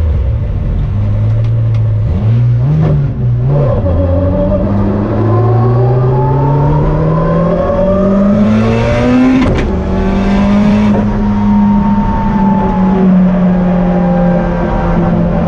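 Toyota Celica ST185's turbocharged four-cylinder accelerating hard, heard inside the stripped cabin, its pitch rising steadily for several seconds together with the whine of a dog-box gearbox. About nine seconds in there is a sharp click, after which the note levels off.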